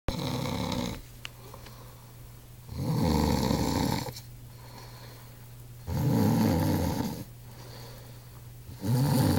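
A sleeping man snoring, one long snore about every three seconds, each lasting a little over a second. A faint steady low hum runs underneath.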